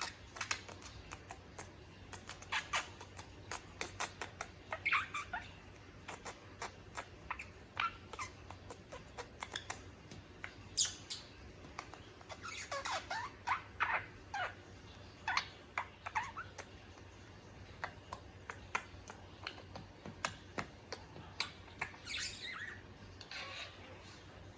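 A budgerigar making short squeaky chirps and chatter, broken by many quick clicks of its beak tapping against a mirror.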